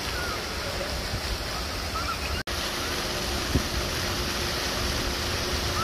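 Fountain jets splashing steadily into a shallow plaza pool, an even rush of falling water. The sound cuts out for an instant about halfway through.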